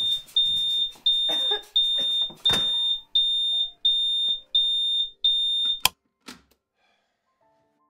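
Ceiling smoke detector sounding its shrill repeating beep, roughly one and a half beeps a second. It is cut off by a sharp knock just under six seconds in as a hand silences it.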